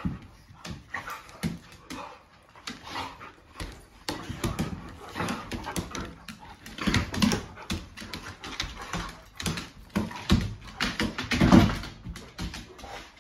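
Two dogs play-fighting on a hardwood floor: whines and yips in irregular bursts among many quick clicks and knocks of claws and paws on the boards. The loudest burst comes near the end.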